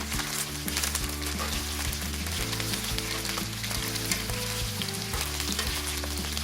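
Chicken wings pan-frying in hot oil, a steady sizzle with fine crackling of spitting fat, over low background music.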